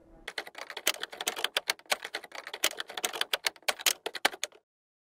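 Typewriter sound effect: a fast, uneven run of keystrokes that starts just after the opening and cuts off abruptly about four and a half seconds in.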